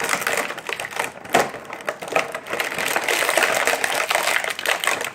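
Plastic toy packaging crinkling and crackling as it is handled and opened, a dense run of small clicks and crackles.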